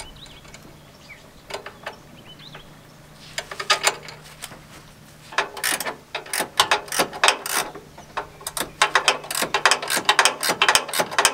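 Ratchet wrench clicking as the nuts are run down onto a driving light's mounting bolts: a few scattered clicks at first, then fast, steady runs of ratcheting from about halfway.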